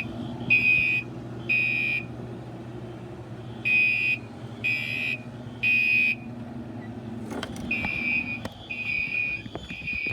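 Fire alarm horns sounding the temporal-3 evacuation pattern: three high-pitched half-second beeps, a pause, then three more. Near the end a run of slightly longer beeps takes over, with a few knocks.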